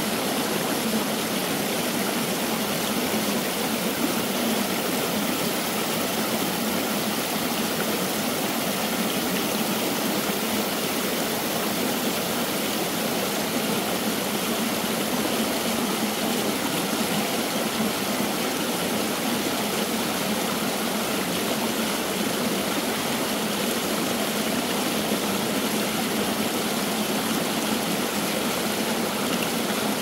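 Mountain stream water flowing out from among rocks: a steady, unbroken rush.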